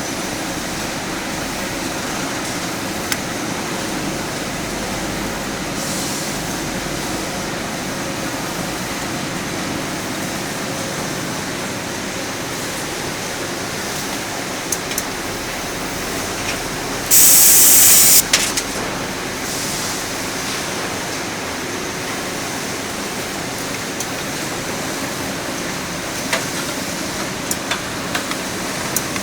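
CNC spring-forming machine running steadily, with a few light clicks. A loud hiss cuts in about seventeen seconds in and lasts about a second.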